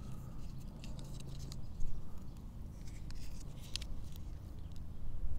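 Hands wrapping PTFE thread-seal tape onto a small brass fitting's threads: faint crinkles and scattered small clicks over a steady low background rumble.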